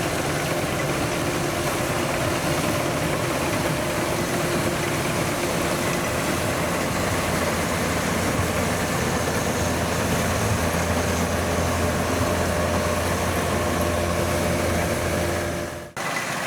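DC 93G rice combine harvester running steadily under load while cutting rice: a continuous engine and machinery din. It drops out for an instant near the end.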